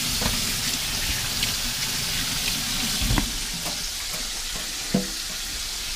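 Hot oil sizzling steadily as buttermilk-battered chicken pieces fry, with the kitchen tap running over hands being scrubbed with a sponge. A couple of faint knocks about three and five seconds in.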